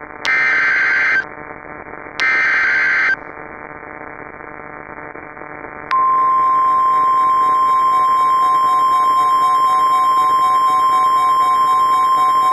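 NOAA Weather Radio emergency alert: two short buzzy bursts of SAME digital header data, each about a second long with a pause between. About six seconds in, the steady single-pitch weather radio warning alarm tone starts and holds, over a light radio hiss. The sequence signals that a warning is about to be broadcast.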